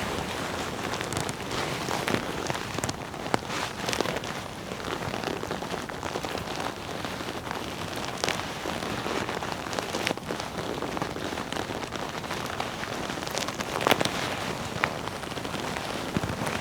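Leather jacket being rubbed and handled: a continuous dense rustling crackle with scattered sharper creaks and crinkles.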